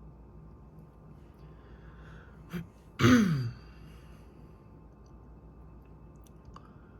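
A short click, then a loud, breathy sigh-like voice sound whose pitch falls over about half a second, over a low steady background.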